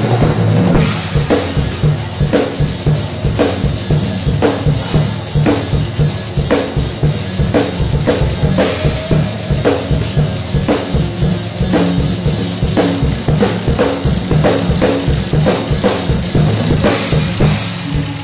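A band playing live, with a drum kit beating a steady, busy rhythm under electric guitar.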